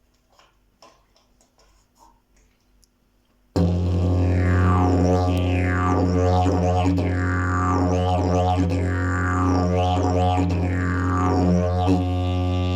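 Fibreglass triple-slide didgeridoo: after a few seconds of near quiet with faint clicks, a deep steady drone starts suddenly, with rhythmic swooping overtone sweeps repeating about every second as the player shapes the mouth. Near the end the sweeps stop and the drone holds plainer.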